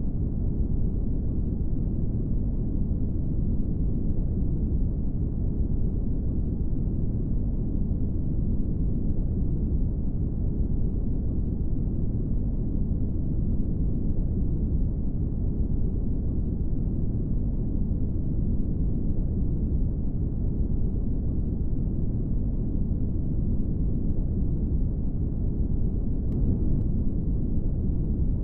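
Steady brown noise: a deep, even rushing hiss weighted toward the bass, with no variation.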